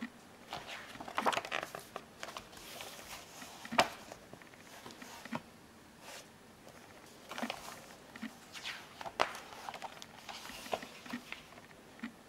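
Paper pages of a booklet being turned and handled: irregular rustling with a few sharp snaps, the loudest about four seconds in.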